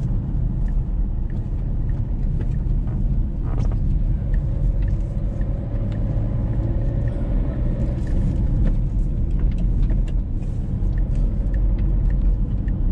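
A car's interior while driving: a steady low rumble of engine and road noise, with scattered faint clicks.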